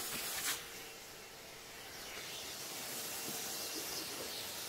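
Vacuum cleaner running steadily, a soft even hiss with a faint hum, hoovering swarf out of a plastic waste-water tank.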